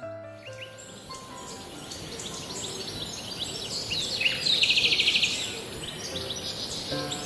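Wild songbirds chirping over a steady background hiss, with one fast trill of rapidly repeated high notes about four and a half seconds in. Soft music notes fade out at the start and return near the end.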